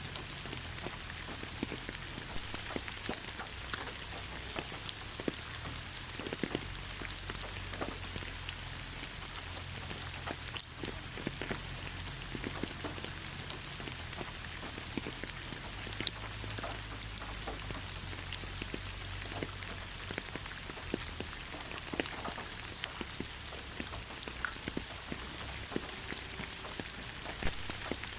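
Steady rainfall, an even hiss of rain with many separate drops ticking throughout.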